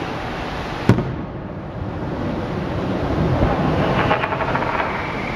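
Aerial fireworks: one sharp bang of a shell bursting about a second in, then a spell of crackling about four seconds in, over a steady rumble.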